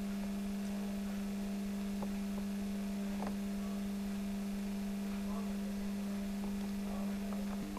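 A steady electrical hum at one unchanging pitch with fainter overtones above it. A second, higher hum joins near the end.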